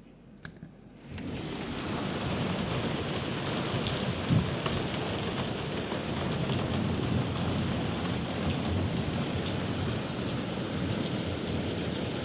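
Heavy rain pouring down steadily. It starts abruptly about a second in, after a near-quiet moment with a couple of faint clicks.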